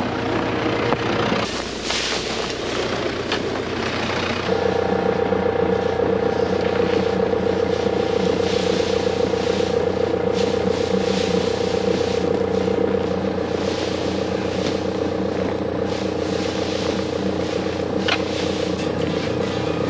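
Tractor engine running at a steady speed, with a steady whine that comes in about four seconds in and fades later.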